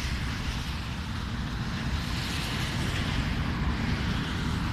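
Wind rumbling on the microphone over a steady rushing hiss from the distant jet engines of a Boeing 737-800 on approach; the hiss swells slightly about two seconds in.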